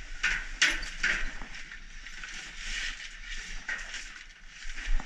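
Plastic sacks rustling and crinkling as they are pushed and lifted with metal snake tongs, with the loudest crackles in the first second or so.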